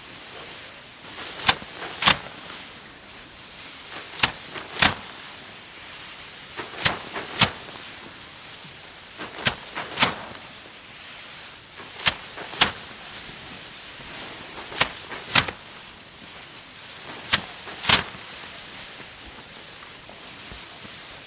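Hand threshing of rice: sheaves of paddy slammed down again and again to knock the grain loose, giving pairs of sharp thwacks about half a second apart, a pair every two and a half seconds, seven times.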